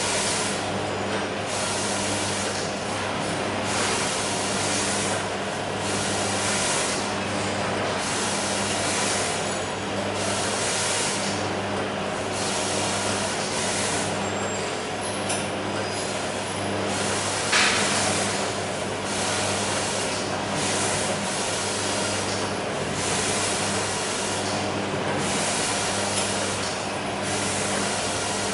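HT-11 tea bag packing machine (string-and-tag type) running: a steady motor hum under a regular cycle of hissing mechanical noise that repeats about every second and a quarter. One sharper, louder burst stands out about two-thirds of the way through.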